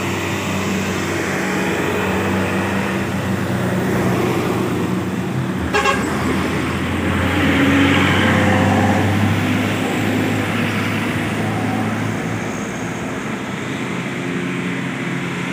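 Heavy vehicle engines running on the road, with a vehicle horn tooting. The ALS intercity bus passes close, loudest about eight seconds in, and there is a sharp click just before it.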